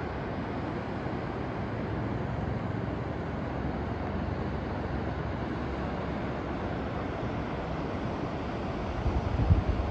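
Steady rushing of fast whitewater river rapids heard from high above. Low wind buffeting on the microphone near the end.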